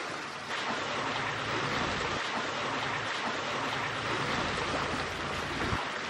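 Steady wash of ocean surf and wind.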